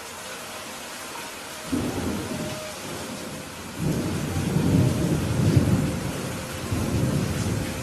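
Steady rain hissing, with thunder rumbling over it: a short roll about two seconds in, then a longer rolling rumble from about four seconds that builds, peaks in the middle and fades near the end.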